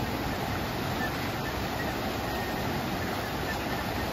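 Small rocky stream rushing over stones in white water: a steady, even rushing noise.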